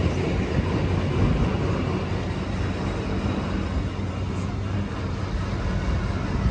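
Steady low rumble and hum of a 55 m superyacht's engines running at low power as it manoeuvres stern-first to dock.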